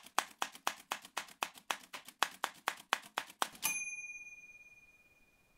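Typewriter sound effect: a rapid, even run of keystroke clicks, about four a second, ending in a single bell ding about three and a half seconds in that rings on and slowly fades.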